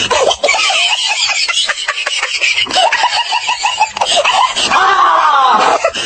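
Laughter in quick bursts, with a longer falling vocal sound about five seconds in.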